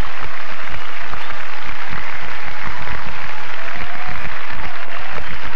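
Large audience applauding and cheering.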